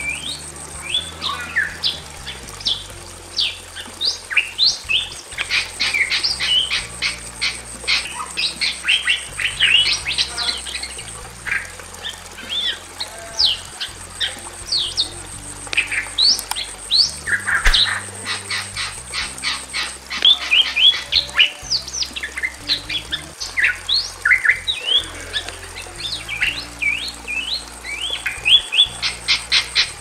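Bali myna calling: a dense, unbroken run of harsh squawks and short whistled notes sweeping up and down, ending in a fast string of repeated notes near the end.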